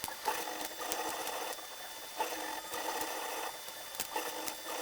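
3D printer running, its stepper motors whirring in stretches of about a second, broken by short pauses and light clicks.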